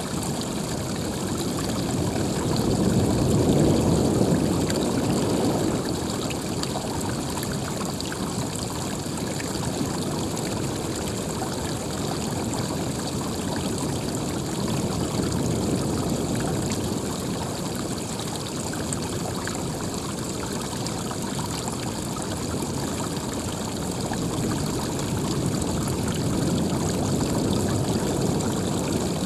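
Running water flowing steadily, a continuous splashing rush that swells louder a few seconds in and again near the end.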